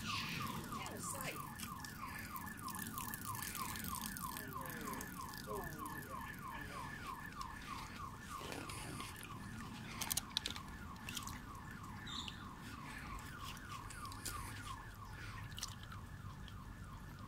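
A steady, rapid series of short high chirps repeating about three times a second, with a few brief clicks about ten seconds in.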